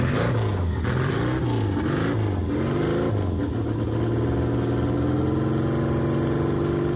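Flat-track motorcycle engine being blipped on the throttle, its pitch rising and falling several times, then held at a steady, raised speed.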